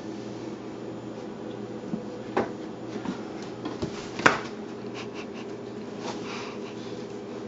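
A few scattered knocks and scuffs as a Ragdoll cat shifts in a cardboard scratcher box and clambers out of it, the sharpest knock about four seconds in, over a steady low hum.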